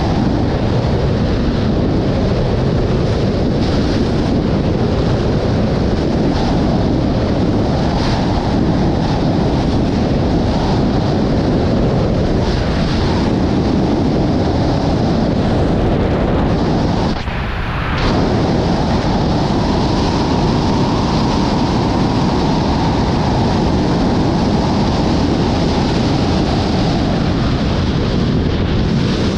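Loud, steady rush of airflow on a body-mounted camera's microphone during wingsuit flight, with a brief drop in level a little past halfway.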